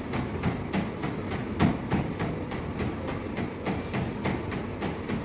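Feet pounding the deck of a running treadmill, an even beat of about three or four steps a second, over the steady low hum of the treadmill's motor and belt.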